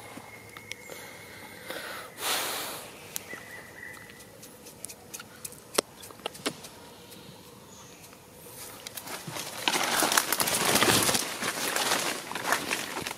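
Scattered light clicks and rustles in dry leaf litter, then from about nine seconds in a loud spell of footsteps crunching and rustling through dry leaves.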